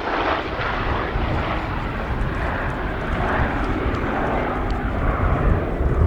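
Douglas A-26C Invader's twin Pratt & Whitney R-2800 radial engines running, a steady drone whose low rumble grows stronger toward the end.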